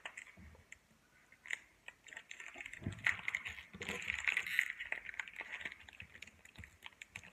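Foil Pokémon booster-pack wrapper crinkling and tearing as it is worked open by hand: irregular crackles and small rips, busiest in the middle of the stretch.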